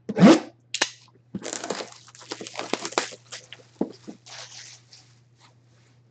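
Packaging being torn open on a sealed memorabilia box: a quick run of crinkling, crackling and tearing that thins out about five seconds in.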